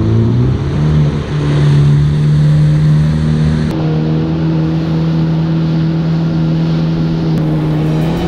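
Yamaha WaveRunner jet ski engine revving up over the first second, then running at a steady high speed with the rush of water and spray. The pitch shifts abruptly twice along the way.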